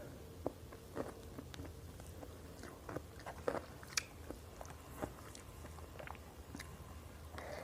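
A person chewing a mouthful of rice and goat curry close to the microphone: faint, scattered wet mouth clicks and smacks.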